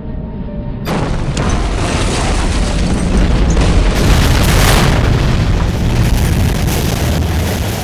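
A large bomb explosion in a film soundtrack: a sudden blast about a second in, followed by a long, loud rumble that carries on for several seconds.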